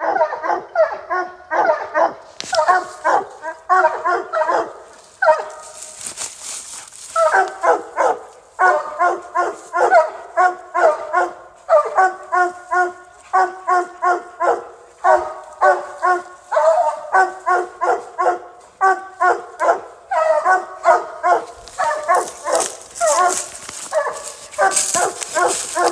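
A dog barking rapidly and steadily at the foot of a tree, about three barks a second: the bark of a hunting dog that has an animal treed. The barking breaks off briefly about six seconds in, and there is some rustling hiss near the start and the end.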